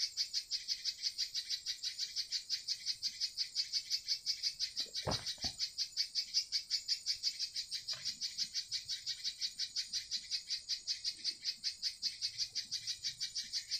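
High-pitched chirping from a small animal, repeating evenly at about five pulses a second without a break. Two faint knocks come about five and eight seconds in.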